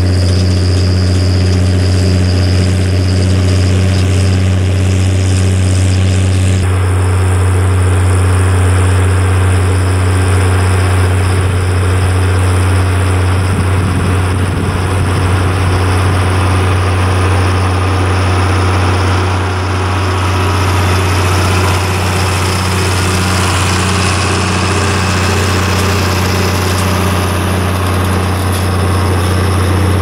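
International Harvester 956 XL tractor's six-cylinder diesel engine running steadily as the tractor pulls a plough through the field, a constant low engine note.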